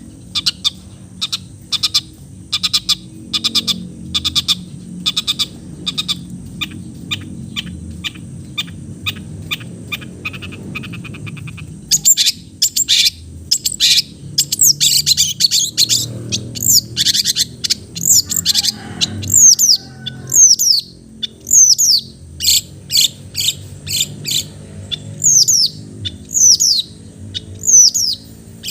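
Long-tailed shrike (cendet) singing: a rapid string of sharp, high chips for the first half, then louder, repeated down-slurred notes from about halfway on.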